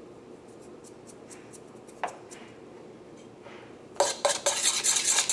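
Metal spoon beating batter in a stainless steel bowl, clinking rapidly against the bowl's sides. The stirring starts about four seconds in, after a quiet stretch broken by a single tap.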